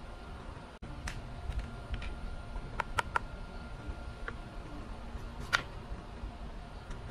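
A knife cutting a small watermelon on a wooden cutting board, with sharp clicks as the blade and fruit meet the board: a quick cluster of taps about three seconds in and the loudest tap about five and a half seconds in.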